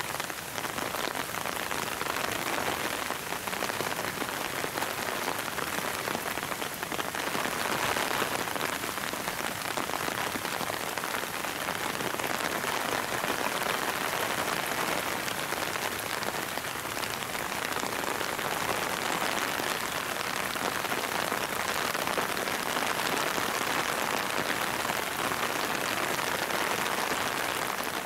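Steady rain falling, an even hiss of drops that does not let up.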